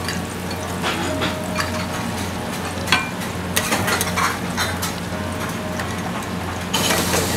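Metal teppanyaki spatulas clicking and scraping against a hot steel griddle and a porcelain plate, over the steady sizzle of the griddle and a low hum. The sizzle gets suddenly louder near the end.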